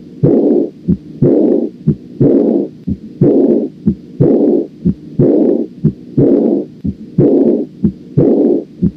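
Heart auscultation of aortic regurgitation: heart sounds at about one beat a second, each beat followed by a blowing early-diastolic murmur that starts loud and fades away (a decrescendo murmur).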